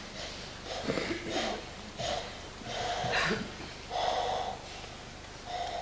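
Short, breathy vocal sounds from actors, coming in separate hissy bursts about once a second.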